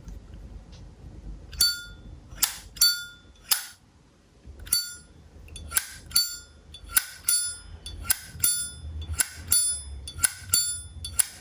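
Zippo lighter lid flicked open and snapped shut over and over: about a dozen sharp metallic clicks, often in quick pairs, each with a short bright ring.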